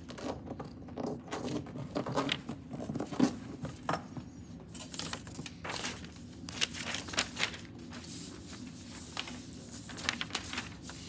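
Sheets of paper rustling and crinkling as they are handled and shuffled, with scattered sharp knocks and taps close to the microphone.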